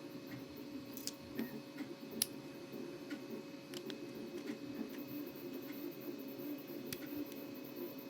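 Faint scattered clicks and taps of 3D-printed plastic parts being handled and forced together with pliers, over a steady background hum.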